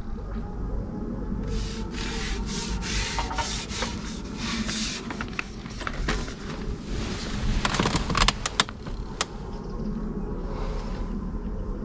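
A run of short rubbing and scraping noises, loudest about eight seconds in, over a steady low rumble of wind on the microphone.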